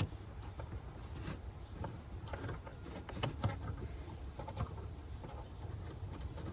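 Faint, scattered clicks and small knocks of the taillight's big retaining screw being turned in against the plastic light housing, over a low steady background.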